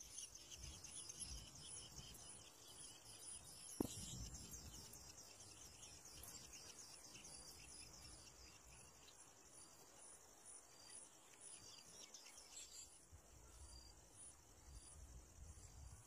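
Faint, steady high-pitched insect trilling with a fast ticking, a little busier in the first few seconds, and a single sharp tap about four seconds in.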